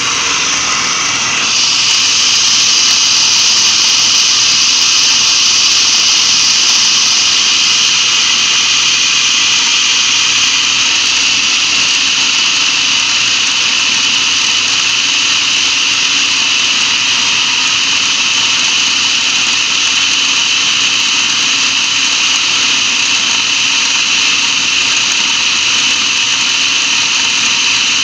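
Food processor motor running steadily with its blade churning a raw chicken, carrot and onion mixture. About a second and a half in it gets louder, then holds at that level.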